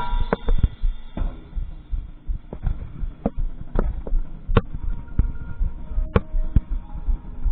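A loud hit on the tenor drums rings out at the start, then a quiet passage of the marching band: sparse light percussion taps and low thuds, with a few faint held notes from other instruments.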